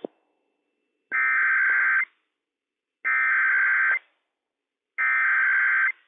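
Emergency Alert System SAME header: three bursts of data tones, each about a second long with about a second of silence between them, the coded opening of a Child Abduction Emergency alert.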